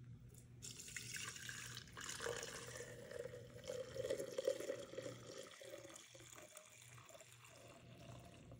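Melted candle wax poured from a glass bowl into a glass mason jar: a liquid pouring and filling sound that starts about half a second in, is strongest in the middle and tapers off about six seconds in as the stream thins.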